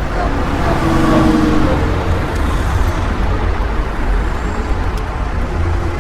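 Road vehicle noise: a steady low engine rumble with traffic sounds, a faint steady tone coming through about a second in.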